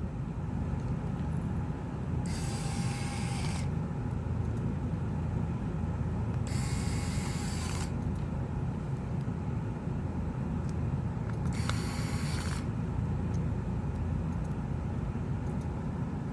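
Small electric screwdriver driving the tablet's screws back in, running in three bursts of about a second each, over a steady low hum.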